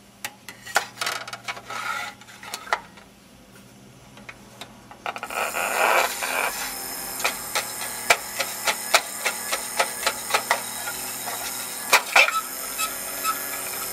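A Carnival Toy battery record player being loaded: a disc is slid into its slot with plastic clicks and rubbing. About five seconds in, the record starts turning, and the acoustically amplified needle plays the lead-in groove: a steady surface hiss with regular crackling ticks, two or three a second.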